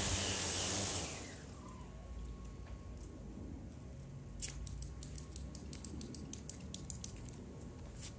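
Home-built quadcopter with 320 kV motors and 15-inch carbon-fibre propellers running as it sets down. About a second in the rotor noise cuts off and the motors spin down with a falling whine. Faint scattered clicks follow.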